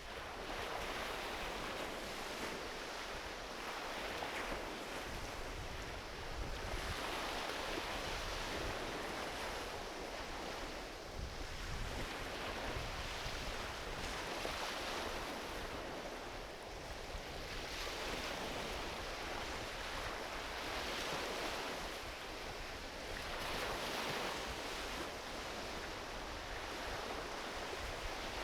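Gentle ocean waves rolling onto a beach, each wash swelling and fading every few seconds in a steady rhythm.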